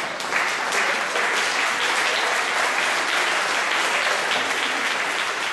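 Audience applauding, a dense steady clapping that starts right at the beginning and thins out near the end.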